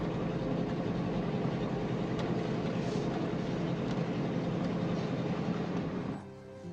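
Steady engine and road noise heard inside a moving vehicle's cabin, with a low hum underneath. About six seconds in it cuts off suddenly and faint music with held tones begins.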